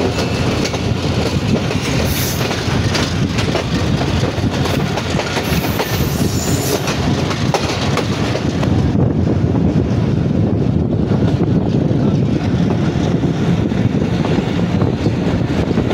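Passenger train running at speed, heard from inside a coach: a steady rumble with wheels clicking over the rail joints. A high squeal of the wheels comes in from about two to seven seconds in, and the low rumble grows heavier after that.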